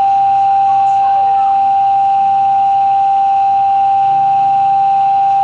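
Fire dispatch radio paging tone over a scanner: a single loud, steady, high tone held without change, the alert sent out before a call to fire department members.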